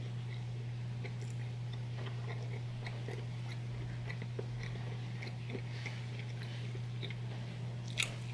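Close-miked chewing of a soft sausage, egg and cheese English muffin sandwich, with small irregular wet mouth clicks. About eight seconds in there is a sharper bite into the sandwich. A steady low hum runs underneath.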